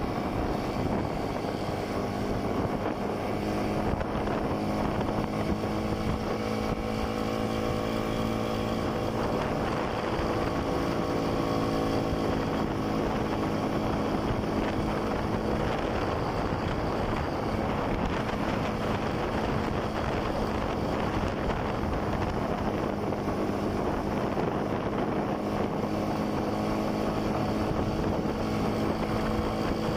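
Motorcycle engine running steadily while riding, its pitch drifting up and down with the throttle, with wind noise on the microphone.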